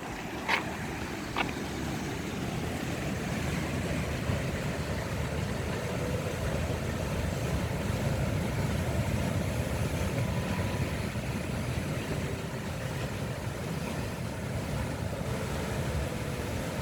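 Churning sea surf with wind, a steady rushing wash. Two short clicks come about half a second and a second and a half in.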